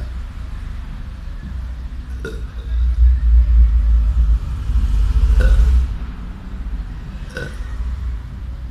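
A boy burping: two long, loud, low burps, about three and five seconds in.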